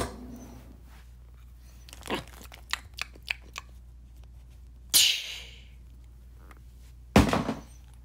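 Toys being handled: scattered light clicks and knocks, then two louder short noisy bursts, about five and seven seconds in.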